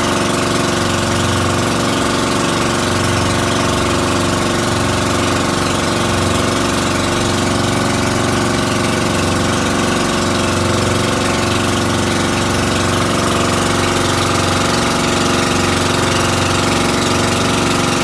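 Outrigger boat's engine running steadily at a constant cruising speed, with a haze of water and wind noise over it.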